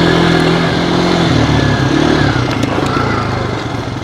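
ATV engine running under throttle, its pitch rising and falling as the rider speeds up and eases off.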